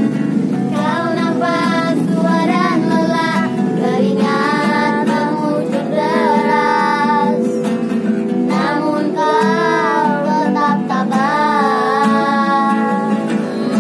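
Acoustic guitar strummed steadily while a young voice sings a melody in phrases, the singing starting about a second in.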